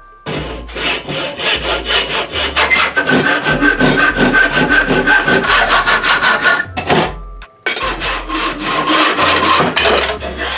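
A hand tool worked quickly back and forth on wood, sawing or rasping, with a scraping stroke about five times a second. The strokes stop briefly about two-thirds of the way in, then start again.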